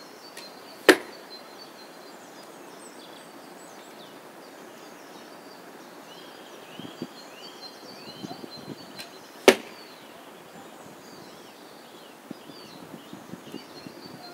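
Two arrows strike the target close by, each a single sharp smack, about eight and a half seconds apart.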